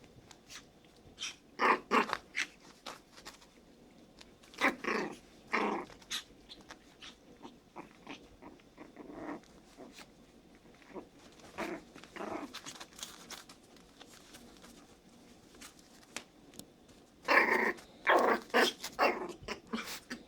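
Puppies growling in short bursts a few seconds apart, with a closer run of louder ones near the end.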